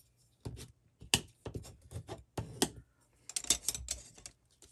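Irregular run of light clicks and taps as cardstock and craft tools are handled.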